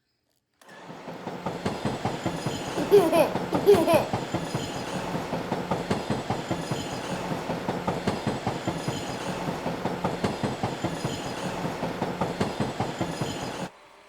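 Train running with a rapid, even clickety-clack over a steady low hum. Two short high rising-and-falling sounds about three and four seconds in are the loudest part. It starts and stops abruptly.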